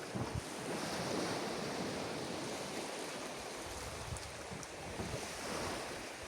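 Surf washing onto a beach, surging twice, about a second in and again near the end, with wind buffeting the microphone.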